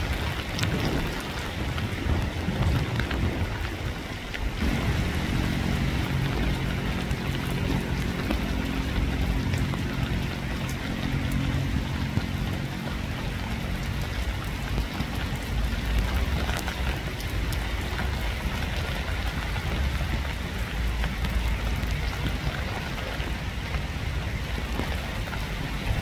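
Steady rain falling, with a low rumble underneath. From about four seconds in, a low droning hum joins it and fades away around the middle.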